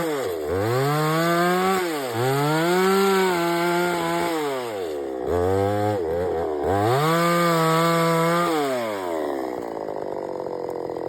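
A 5900 gasoline chainsaw running at high revs, its pitch diving sharply and climbing back several times, then dropping to a lower, steady running note about nine seconds in.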